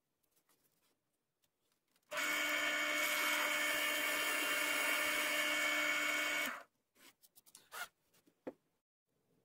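Bench drill press running a Forstner bit into a wooden bench slat, boring a recess for a bolt head. The drilling starts about two seconds in, runs steadily for about four and a half seconds and cuts off suddenly, followed by a couple of light knocks.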